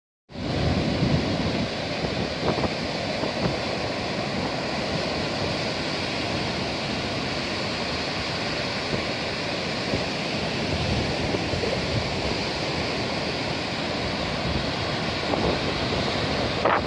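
Rough sea surf breaking and washing up a sandy beach, a steady rushing of foam. Gusts of wind rumble on the microphone now and then.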